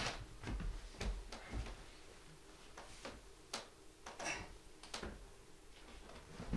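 Faint, scattered footsteps and light knocks on a wooden stage floor as two people move about.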